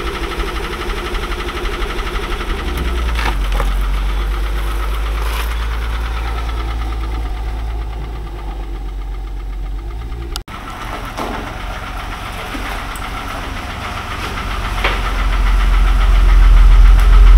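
Mercedes-Benz W126 engine running with a knock of unknown cause. It gets louder over the last few seconds.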